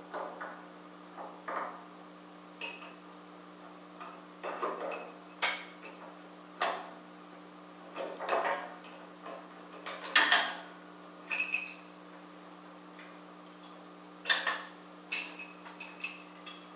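Irregular metallic clinks and clanks of steel crane hardware, a beam trolley and chain hoist, being handled and fitted by hand on a gantry crane beam. The strikes come about one every second or two, the loudest a little past the middle, over a steady low hum.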